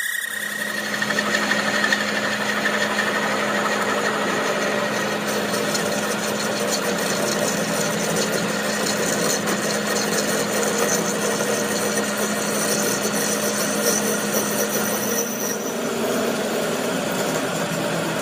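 Machinery running steadily: a constant hum under dense mechanical noise, changing a little in character near the end.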